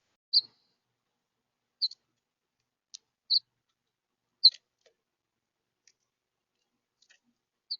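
Short, high chip notes from a bird: five clear chips and a faint one, at uneven gaps of about one to three seconds.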